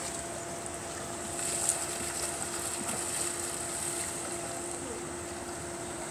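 A steady machine hum over an even background hiss; the hum comes in just after the start and holds at one pitch.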